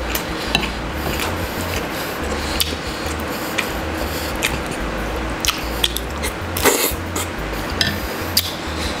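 Close-miked mukbang eating sounds: wet chewing and mouth smacks as a man eats pork dinuguan (blood stew), with scattered sharp clicks throughout.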